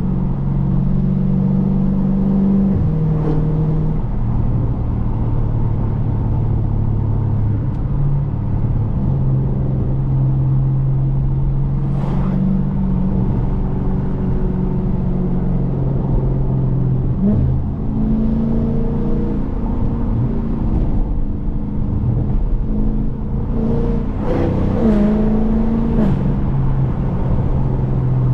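2020 Dodge Challenger Scat Pack's 6.4-litre HEMI V8 running while driving. Its note holds steady and steps to new pitches several times, with a short rise in revs near the end.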